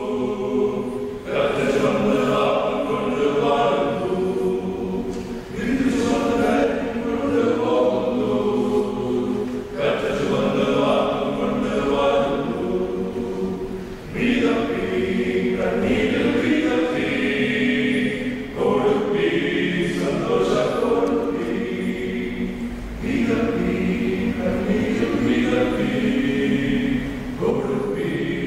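Male voice choir singing a Malayalam hymn unaccompanied, in phrases of about four seconds with short breaks between them.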